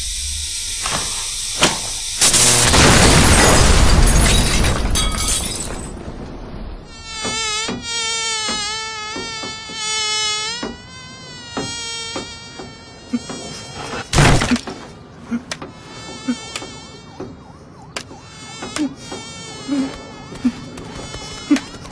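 A loud noisy rush for the first few seconds, then a fly buzzing with a wavering pitch for several seconds. A sharp loud hit comes about fourteen seconds in, followed by scattered short knocks and brief buzzes.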